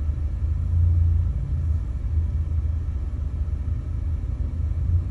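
A low, steady rumble with no other sound over it.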